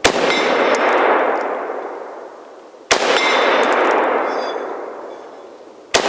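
Three shots from a Springfield M1A Scout Squad rifle in .308 (7.62×51) with a muzzle brake, fired about three seconds apart, each followed by a long echo that dies away slowly. A faint high metallic ringing follows the shots.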